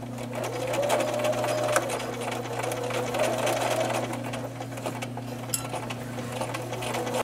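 Domestic electric sewing machine running steadily, its needle stitching at a fast, even rate over a motor hum as it sews a fabric border down onto a terry towel.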